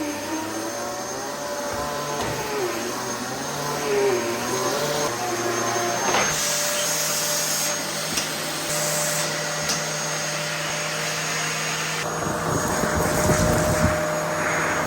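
Dyson DC14 upright vacuum cleaner running, its motor giving a steady high whine over a wide rush of air. The pitch wavers during the first half, and a low rumble joins in about twelve seconds in.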